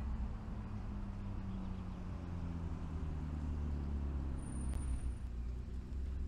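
Street traffic: a car driving past on the road alongside, its engine note sliding slightly lower, over a steady low rumble.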